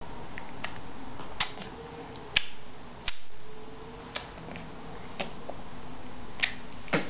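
A baby making clicking noises with her mouth: about eight single sharp clicks, spaced irregularly, roughly one a second.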